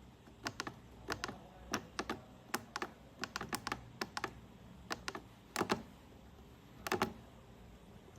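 Buttons on an inverter's LCD keypad being pressed: an irregular run of short clicks, some in quick pairs, with a pause of about a second near the end.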